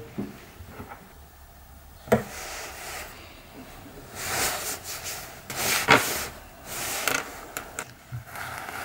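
A small wooden block handled on a wooden workbench: a knock about two seconds in, then wood sliding and scraping against wood, with a sharper knock around the middle and a few light clicks near the end.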